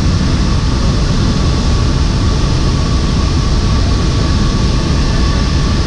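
Cabin noise inside a military transport aircraft in flight: a loud, steady rumble and rush of engines and air, with a faint steady hum above it.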